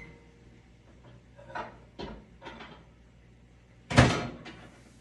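Microwave oven being handled: a few light clicks and knocks as the door is opened and a cup is lifted out, then the door shut with one loud knock about four seconds in.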